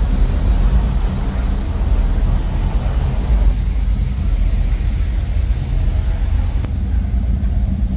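Low, steady rumble of an idling car engine. A lighter hiss of street noise above it drops away about three and a half seconds in.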